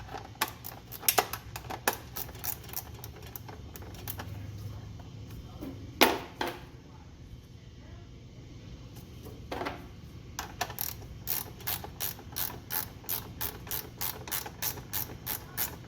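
Ratcheting gear wrench clicking as it loosens a 3/8 bolt, with a few scattered clicks and a louder clank about six seconds in. In the second half it settles into a steady run of about three ratchet clicks a second.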